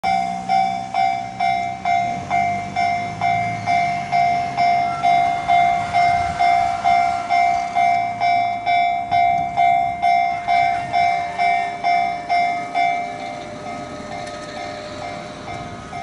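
Japanese railway level-crossing warning bell ringing with a steady electronic "kan-kan" a little over twice a second, warning of an approaching train; it becomes noticeably quieter about thirteen seconds in. A car passes over the crossing at the start with a low rumble.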